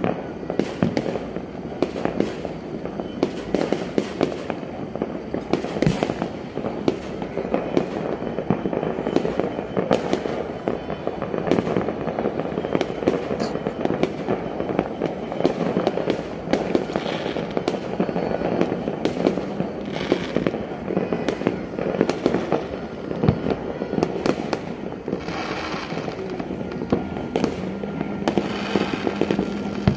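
Many fireworks and firecrackers going off all over a city at New Year: a dense, unbroken crackle of pops with sharper bangs scattered throughout.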